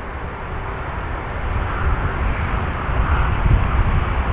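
Boeing 747's four jet engines rumbling on the runway, growing steadily louder as the aircraft approaches.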